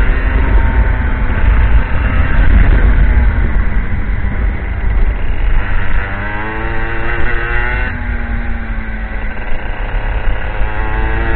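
IAME X30 125cc two-stroke kart engine running hard at speed. Its pitch climbs as it accelerates, drops suddenly about eight seconds in as the throttle is lifted for a corner, then climbs again near the end.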